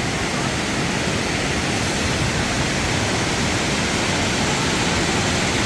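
Waterfall rushing: a steady, even wash of falling and fast-flowing water.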